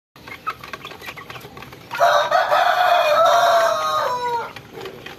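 Young chickens pecking at feed with small clicks and soft clucks. About two seconds in, a rooster crows once, a long call of about two and a half seconds that falls in pitch at the end.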